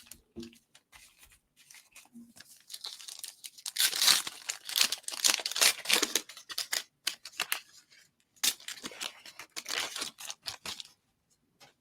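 A trading card pack's wrapper being torn open and crinkled, in two bouts of crackling, the first starting about three seconds in and the second about eight and a half seconds in.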